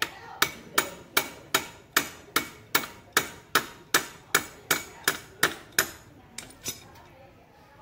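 About sixteen steady hammer blows, roughly two and a half a second, each with a short metallic ring, then two lighter taps. They are struck at a motor scooter's oil drain bolt that is screwed in very hard, to knock it loose.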